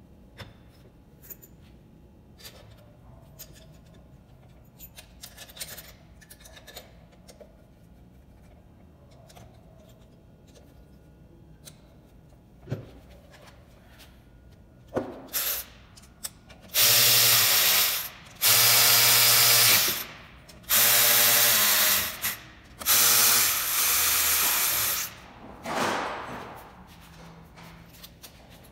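Cordless electric ratchet running in about five bursts of a second or two each, driving screws into the housing of an alternator being reassembled. Before the bursts, light clicks and clinks of parts being handled.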